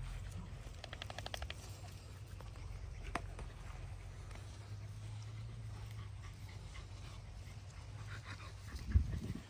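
A pack of young dogs playing and wrestling, with faint scuffles and small dog sounds over a steady low rumble. A loud low thump comes near the end.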